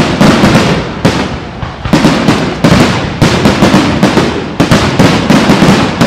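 Aerial firework shells bursting in a rapid, steady barrage: loud bangs, about two or three a second, each trailing off in a reverberant tail.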